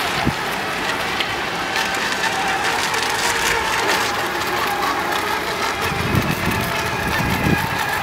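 Radio-controlled racing boats running flat out across the water: a steady, high motor whine over an even hiss, with some low rumbling toward the end.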